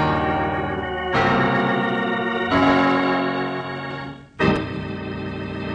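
Organ music bridge between scenes, playing a series of held chords that change every second or two, with a brief dip about four seconds in before a new chord sounds.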